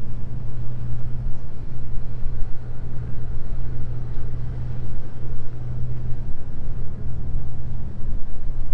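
A steady low engine drone over a general outdoor noise haze.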